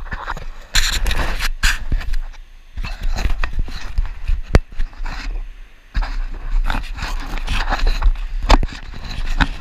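A mountain bike being ridden over hard-packed sand, heard from a camera mounted on the bike. Wind rumbles on the microphone throughout, with uneven scraping hiss and frequent sharp clicks and rattles from the bike.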